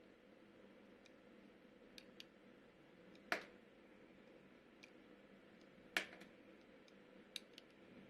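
Slime being handled: scattered small clicks and pops, with two louder pops about a third of the way in and again past two-thirds.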